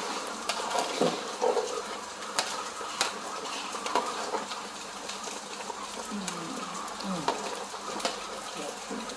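A long metal ladle stirring thick jjajang sauce in a large metal pot, with scattered clicks and knocks of the ladle against the pot, most of them in the first few seconds, over a steady hiss.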